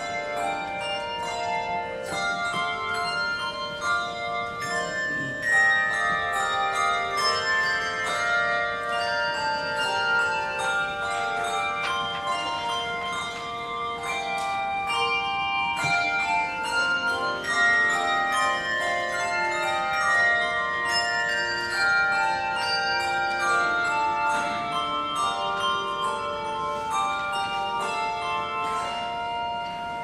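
Handbell choir ringing a hymn arrangement: many tuned handbells struck in chords and melody lines, each note ringing on and overlapping the next.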